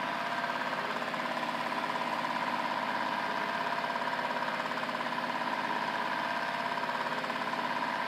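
Washing-machine drive motor running steadily on a test bench, its pulley spinning, with an even hum and a steady mid-pitched whine.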